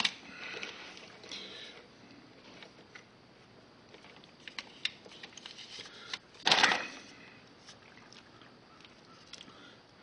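Faint clicks and rustling of feeder wires being handled, with one louder brief noise about six and a half seconds in.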